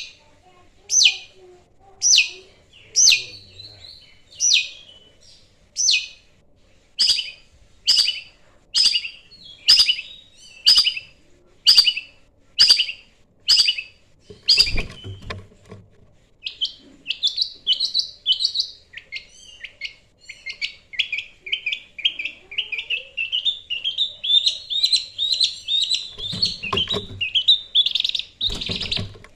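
Long-tailed shrike singing: harsh, sharp single calls about once a second, breaking about halfway into a fast, continuous chattering run of notes.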